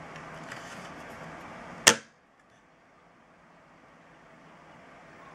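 Faint steady room hiss, broken by one sharp click about two seconds in; after it the background drops to near silence and slowly rises again.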